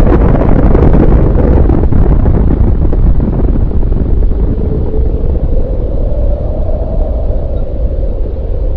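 Deep rumbling roar of a massive explosion, the aftermath of a nuclear blast, dying away slowly as its hiss fades in the first few seconds and leaving a heavy low rumble. A steady droning tone becomes clearer in the second half.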